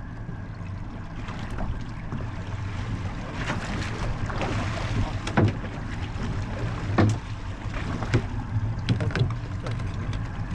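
Fishing boat's engine idling with a steady low hum, under wind on the microphone and water noise, with several sharp knocks about halfway through.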